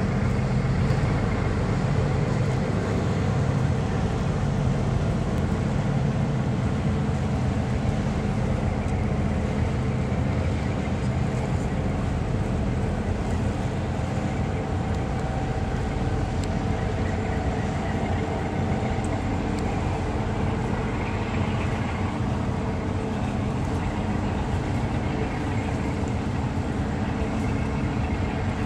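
Cruise ship's engines giving a steady low drone with several held hums as the liner passes.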